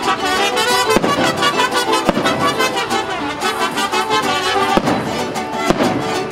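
Music playing, cut through by four sharp bangs: two in the first couple of seconds and two more near the end.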